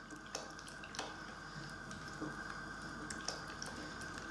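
Silicone spatula stirring beaten eggs with chunks of potato, leek and cheese in a glass bowl: soft wet squelching with a few light taps of the spatula against the glass.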